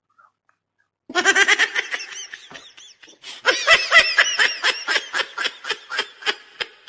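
Laughter in two long runs of quick, pitched 'ha' pulses: the first starts about a second in, and the second starts about halfway through.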